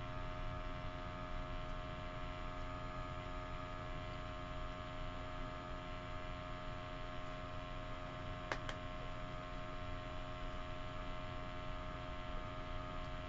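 Microhematocrit centrifuge running: a steady hum made of several held tones. A single short click about eight and a half seconds in.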